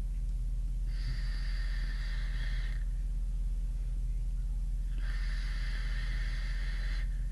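Two drags of about two seconds each on a Cthulhu V2 rebuildable tank atomizer, a 0.29 ohm dual-coil build fired at 50 watts: a steady hiss of air drawn through the airflow holes past the firing coils. A steady low hum sits underneath.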